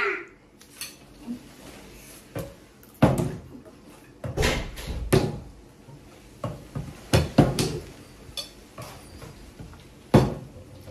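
Small plastic water bottle flipped and landing on a wooden table: about half a dozen sharp knocks and thuds, irregularly spaced, as it hits and tumbles.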